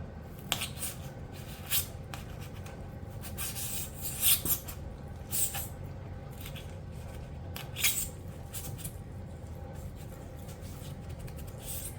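Scattered scraping and rustling as a turnout wire is worked through a tight hole in model-railroad scenery, with a few sharp clicks, over a steady low hum.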